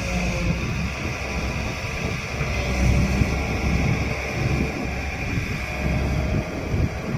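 JCB 205 excavator's diesel engine running steadily under working load, a continuous low rumble with uneven surges, while the machine shifts soil.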